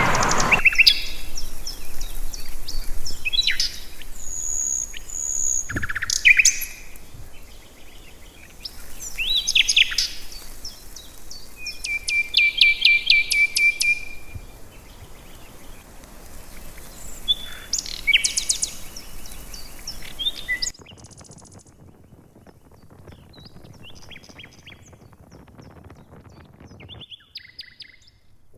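Wild birds singing and calling: a mix of short chirps, whistles and a rapid trill from several birds. About two-thirds of the way through the sound drops suddenly and the calls become fainter.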